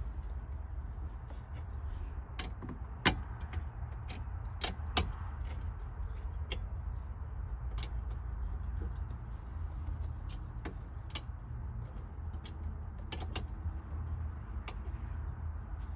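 Scattered sharp clicks and light knocks, irregular and spaced out, the strongest about three and five seconds in, over a low steady rumble.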